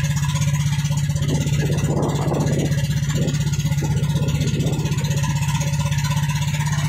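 Outrigger fishing boat's engine running steadily under way, a constant low drone, with irregular water splashing along the hull.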